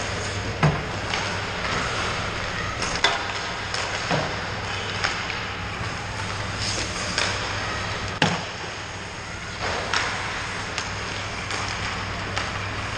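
Ice hockey warm-up sounds: pucks and sticks clacking and skates scraping on the ice, heard as sharp irregular knocks every second or so over a steady low hum.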